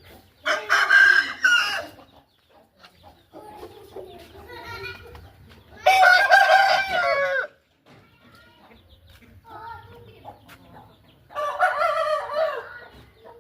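Aseel rooster crowing three times, each crow about a second and a half long and roughly five seconds apart, with softer clucking in between.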